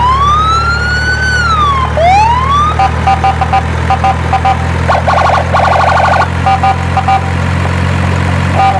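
Electronic siren from a toy emergency vehicle: a tone sliding up and falling back over about two seconds, rising again, then switching to a fast repeating pattern of short beeps, over a steady low hum.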